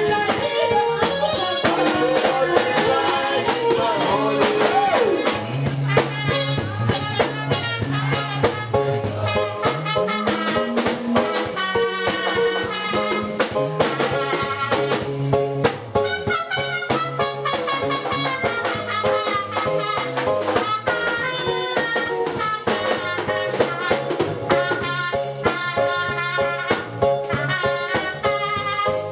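Upbeat band music with a steady drum-kit beat and brass horns carrying the melody.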